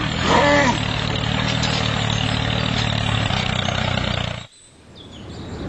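Tractor diesel engine running steadily, laid on as a sound effect over the toy tractor. It cuts off suddenly about three-quarters of the way through, and a quieter low rumble then builds up.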